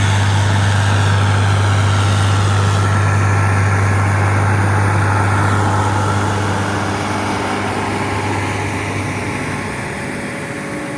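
New Holland T8 tractor's diesel engine rumbling steadily while pulling an Estrela 20-row planter, a deep continuous drone. It grows gradually quieter over the second half as the tractor draws away.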